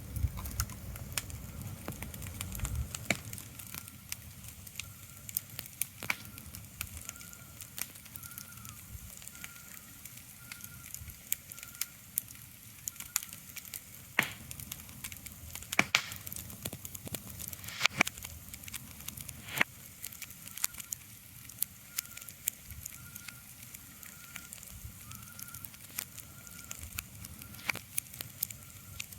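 Irregular crackles and sharp pops over a soft steady hiss, with a faint high tone pulsing evenly in the background.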